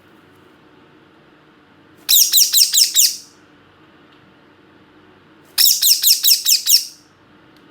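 A parrot chirping in two bursts, each a rapid run of about six or seven high-pitched notes lasting about a second; the second burst comes about three and a half seconds after the first.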